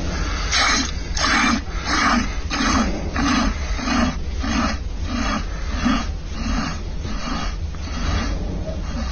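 Hand-milking straight into a glass of coffee: rhythmic squirts of milk hitting the liquid and frothing it, about three squirts every two seconds.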